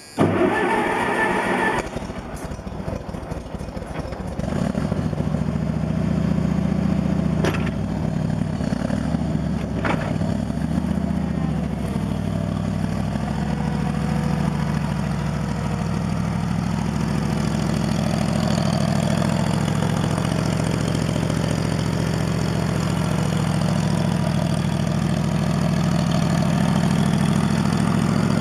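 Cold start of a New Holland L425 skid steer's gasoline engine with the choke on and at about quarter throttle, after three months unused. A loud burst of cranking and firing in the first two seconds, a quieter uneven stretch, then from about four to five seconds in it settles into a steady run.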